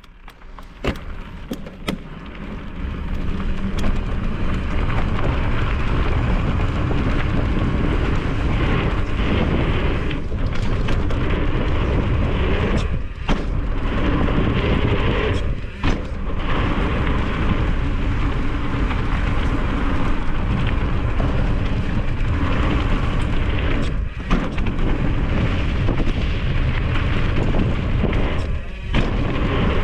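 Wind buffeting a camera microphone moving fast along a mountain-bike trail: a steady heavy rumble and rush that builds over the first few seconds, broken by a few brief dips and knocks from bumps.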